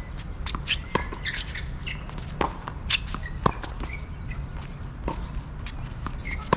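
Tennis ball hit back and forth in a rally on a hard court: sharp pops of racket strikes and ball bounces, about one a second.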